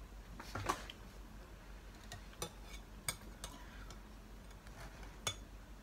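A metal spoon clinking lightly against a ceramic soup bowl while eating: a scattered run of faint, short clicks.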